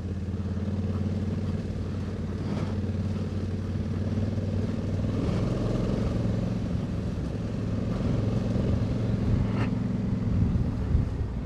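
Honda Africa Twin's parallel-twin engine running steadily on the move, its pitch holding nearly level. There is a faint sharp tick about two and a half seconds in and another near the end.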